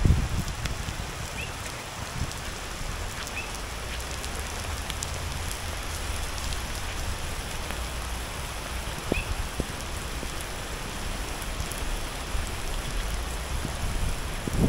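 Steady rain falling on a wet road and garden, with a few sharp taps of drops close to the microphone.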